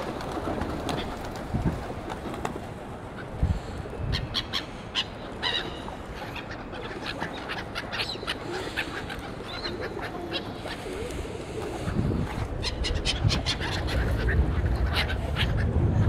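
A flock of black-headed gulls squabbling over food, giving short harsh calls in quick clusters. A low rumble grows louder near the end.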